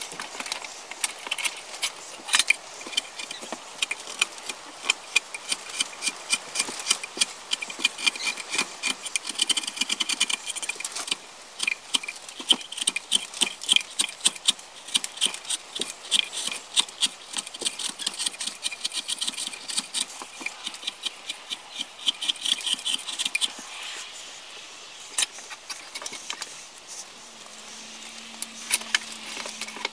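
Hand chisel cutting and scraping the wood of a carved wooden cup (kuksa) held in a bench vise: rapid, crisp paring strokes, several a second, easing off about three-quarters of the way through.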